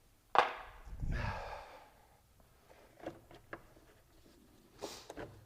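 Handling noises from work on the car's engine-bay parts: a sharp click about half a second in, a short breathy rush of noise soon after, then a few light taps and a brief rustle near the end.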